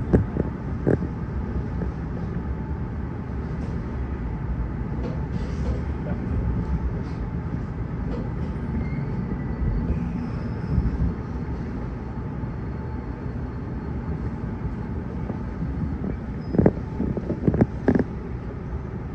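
Kintetsu 1252 series electric train running: a steady low rumble of wheels on rail, with a few sharp knocks near the start and a cluster of them near the end.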